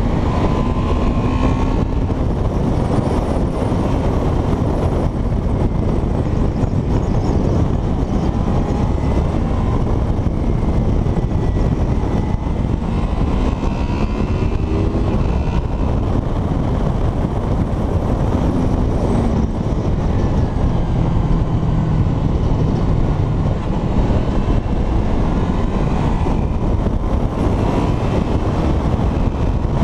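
Honda Crossrunner's V4 engine running as the motorcycle is ridden, heard from a camera on the bike with heavy wind rush. The engine note rises and falls a few times with the throttle.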